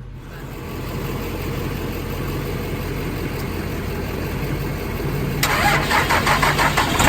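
Truck engine running, louder from about a second in, then louder again with a rhythmic clatter from about five seconds in.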